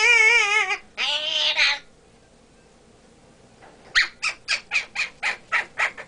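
African grey parrot calling: a wavering, whistle-like call, then a harsh raspy squawk. After a pause, near the end, comes a quick run of about eight short, sharp clicking calls, about four a second.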